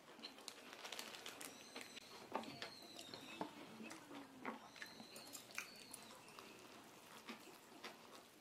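Paper lid of a cup noodle being peeled back, then chopsticks stirring noodles in the paper cup. Soft crinkling, many small clicks and taps, and a few short high squeaks.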